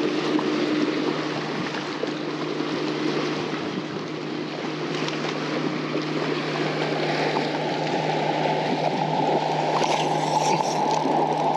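Wind rushing over the microphone and choppy lake water slapping the hull of a bass boat, over the low steady hum of the bow-mounted electric trolling motor.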